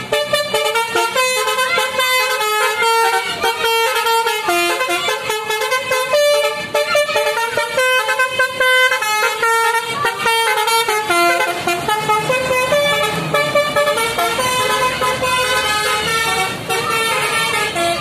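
Indonesian bus telolet horn, a multi-tone musical horn, playing a quick rhythmic tune of changing notes over and over, with more gliding notes in the later part.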